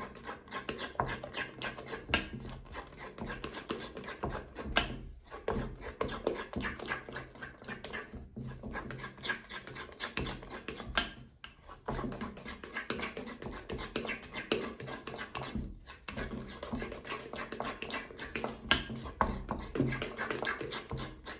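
A fork stirring thick batter in a stainless steel mixing bowl: quick, repeated scraping and clinking of the tines against the metal, with a few short pauses. The flour is being worked into the wet ingredients.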